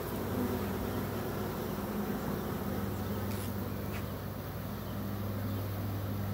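A large swarm of honey bees buzzing: a steady low hum of many bees flying around the cluster and going in and out of a hive box.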